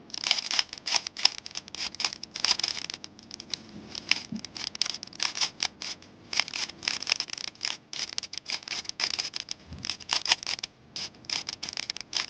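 A Rubik's cube being turned by hand through the second-layer edge algorithms: rapid runs of plastic clicks and scrapes with a couple of short pauses.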